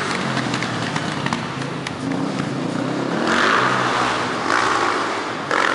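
Off-road motorcycle engine revving in repeated surges as the bike climbs a staircase, with a few sharp knocks in the first couple of seconds.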